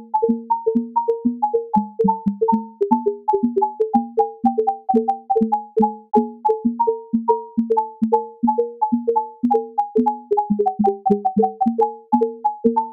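Music: an even, quick run of short struck notes, about three a second, each starting sharply and dying away, with three tones sounding together.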